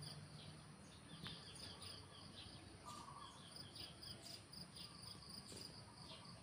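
Near silence: faint outdoor background of insects chirping steadily, with a short bird-like call about three seconds in.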